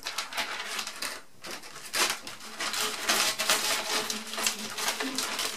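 Plastic window film and its liner crinkling and crackling as the roll is unwound down wet glass, a dense run of small crackles that thickens about two seconds in.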